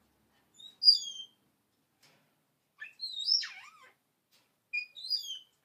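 African grey parrot whistling and chirping: three short bursts of high, sliding whistles about two seconds apart, the first and last much alike.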